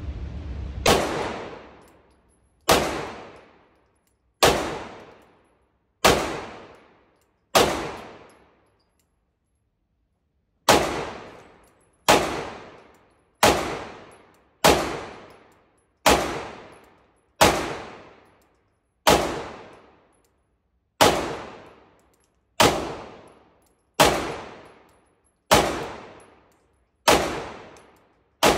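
Springfield Prodigy 2011-style pistol fired in slow, aimed single shots, about seventeen of them roughly a second and a half apart, with a pause of about three seconds after the fifth. Each shot echoes briefly in the indoor range.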